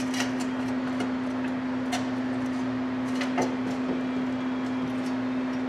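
A steady electrical-sounding hum from the shop, with a few light clicks and taps of metal parts being handled: one near the start, one about two seconds in and one about three and a half seconds in.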